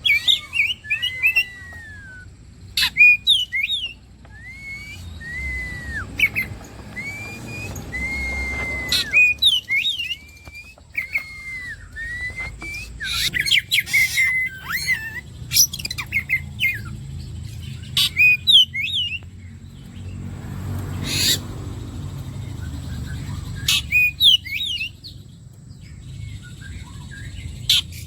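Oriental magpie-robin (kacer) singing a varied run of whistled notes, glides and sharp chirps, with a series of repeated arching whistles a few seconds in, over a low background rumble.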